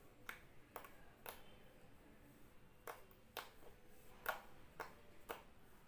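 Homemade white Fevicol-glue slime being pressed and folded under the fingers, giving sharp little clicks and pops, about eight in all, in quick runs of two or three about half a second apart.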